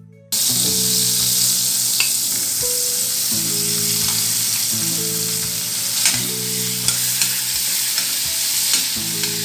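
Butter and diced bacon frying in a stainless steel pan, a steady sizzle. A few sharp clicks come from the utensil stirring against the pan.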